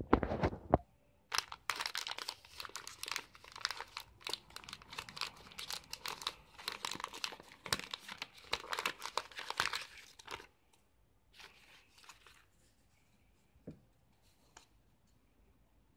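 Plastic Mounds candy bar wrapper crinkling and tearing as it is pulled open by hand: a brief handling bump, then a dense crackle for about nine seconds, then a few faint rustles and a small tick.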